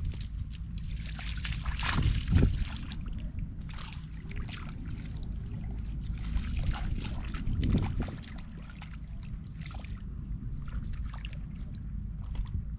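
Shallow muddy water splashing and sloshing as a barefoot person wades through it, handling woven bamboo trap screens, with louder splashes about two and eight seconds in, over a steady low rumble.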